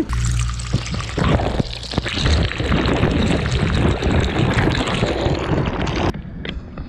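Handling noise from a handheld camera: the microphone rubbing and knocking against a hand or clothing, a loud rustling with small knocks and a low rumble, cut off abruptly about six seconds in.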